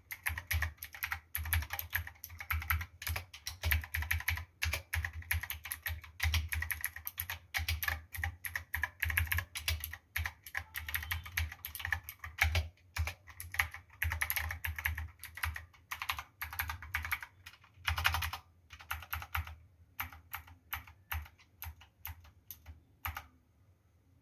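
Typing on a foam-modded Cosmic Byte CB-GK-23 Artemis mechanical keyboard fitted with PBT keycaps: a fast, steady patter of keystrokes that slows to scattered single key presses near the end and stops shortly before the end.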